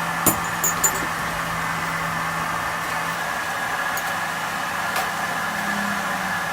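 A machine running with a steady, even hum, with a few sharp knocks over it, the loudest just after the start.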